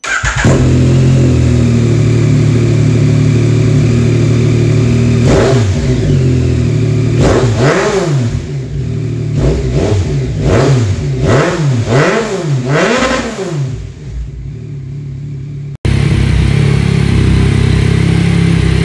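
2021 Yamaha MT-09 SP's inline-three engine, breathing through a freshly installed Akrapovic Racing Line carbon exhaust, fires up and idles, then is revved in a series of short throttle blips at about one a second. After an abrupt cut near the end it idles steadily again.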